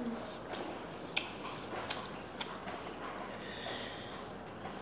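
A person chewing a mouthful of noodles, with a few small clicks in the first half and a short breath through the nose about three and a half seconds in.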